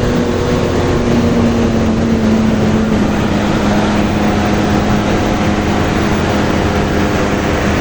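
Bus engine running steadily close by: a low hum that drifts slightly lower in pitch a couple of seconds in, over a constant rumble of road and wind noise.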